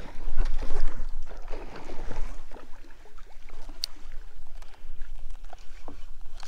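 Water splashing and sloshing around a kayak, loudest in the first couple of seconds, then scattered small knocks and clicks over a low rumble.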